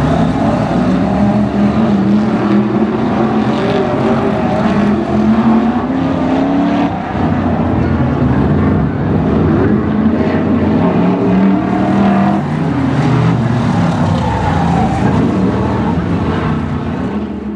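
Several BriSCA F1 stock cars' V8 engines racing round a dirt oval. Their pitch rises and falls as the cars accelerate and pass.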